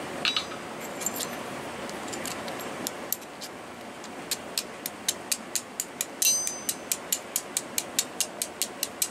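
Hand-forged steel striker, made from an old file, struck against a flint held in the hand: a few scattered scrapes at first, then from about four seconds in a fast, even run of sharp clicks, about four a second. One strike is louder, with a brief metallic ring.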